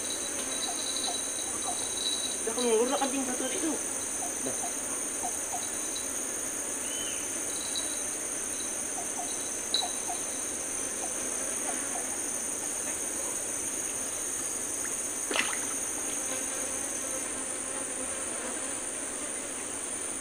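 Steady, high-pitched chorus of tropical forest insects droning without a break, with a brief faint voice about three seconds in and a single sharp click about fifteen seconds in.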